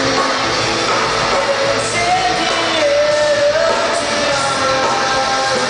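Live rock band playing on stage with guitars, drums and a singer holding long, wavering notes, amplified through a PA in a large hall.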